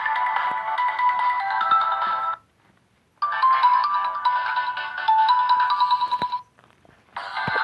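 A Samsung Galaxy Fame Lite ringtone playing a short melody of stepping notes on repeat. The melody breaks off about two and a half seconds in, plays again after a brief pause, and starts a third time near the end.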